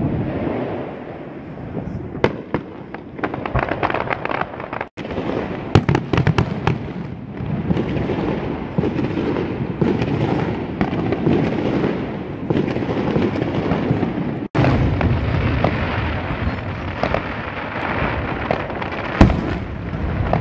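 Fireworks display: aerial shells bursting with repeated bangs and dense crackling over a continuous rumble. The sound cuts out briefly twice, and one especially loud bang comes near the end.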